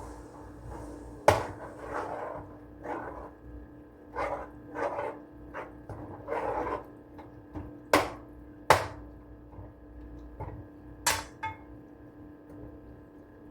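Kitchen clatter: sharp knocks of kitchenware being set down or struck, four louder ones spread through, with softer rustling and scraping in between, over a steady low hum.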